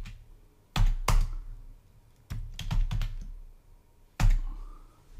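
Typing on a computer keyboard: sharp, separate keystrokes, with a short run of several taps about two to three seconds in.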